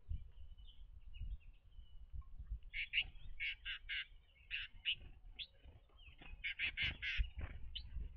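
Small songbirds calling: a run of short, harsh chirps starting about three seconds in and coming again in a tighter bunch near the end, over a low rumble of wind on the microphone.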